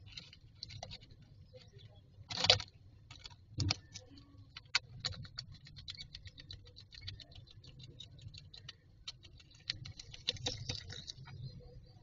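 Adult common myna moving about in a straw nest inside a wooden nest box: scratching and rustling in the nesting material, with a louder knock about two and a half seconds in and another a second later, then a long run of light rapid clicks, about eight a second.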